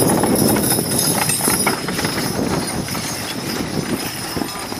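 Hoofbeats of a team of draft horses trotting past pulling a carriage, a run of quick clip-clops with the rattle of harness and wagon over a low rumble. Loudest for the first couple of seconds as the team passes close, then quieter.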